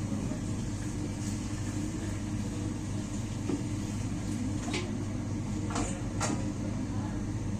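A steady low mechanical hum of kitchen equipment. Sharp clinks and knocks come about five seconds in and twice around six seconds, the sound of kitchen utensils or pots being handled.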